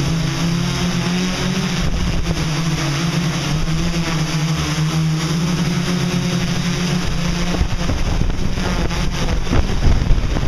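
MikroKopter X8 octocopter's eight brushless motors and propellers humming in flight, the pitch wavering slightly as the motors keep correcting a twitchy flight; the gyros are not set right. Near the end the steady hum gives way to a rougher noise with a few sharp knocks.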